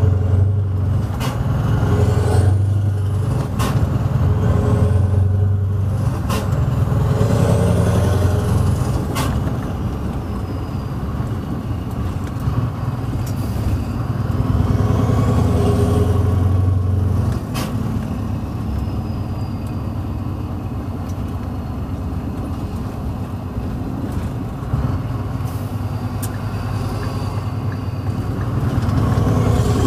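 Scania R500 V8 diesel engine with loud pipes, heard from inside the cab while driving, its low note swelling and easing with load and dropping sharply about two thirds in. A few short clicks sound over it.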